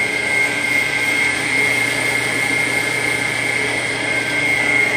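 Several electric fans running steadily: an even rushing hum with a thin, constant high whine.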